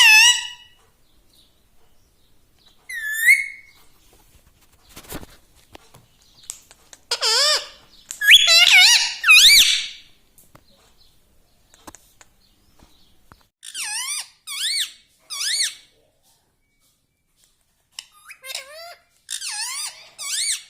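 Indian ringneck parakeet giving high, squeaky chirps and calls in short bursts, with a loud run of them in the middle and a quick cluster near the end. A single click sounds about five seconds in.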